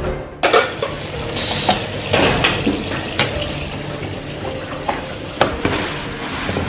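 Oxtail pieces sizzling as they brown in hot oil in a pot, starting about half a second in, with scattered clinks and knocks of pots and utensils.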